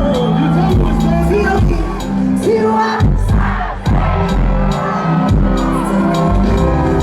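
Loud live Afrobeats music with a steady bass line and drums, a voice singing over it, and a crowd cheering.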